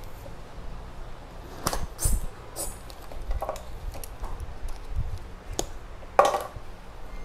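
Handling noise from hands working among potted orchid plants and their stakes: a series of sharp clicks and knocks with light rustling, the loudest about six seconds in.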